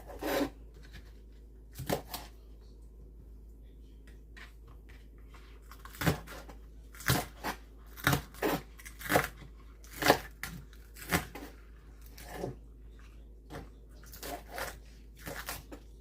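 Kitchen knife slicing a scallion on a cutting board, single crisp strokes roughly once a second, with a pause of a few seconds early on.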